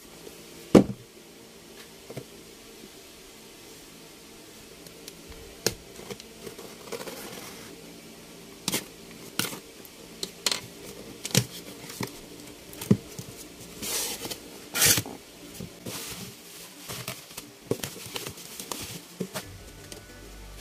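A cardboard parcel being handled and opened: scattered taps and knocks on the box, a few short rustling bursts about two-thirds of the way through, then plastic bubble wrap crinkling near the end.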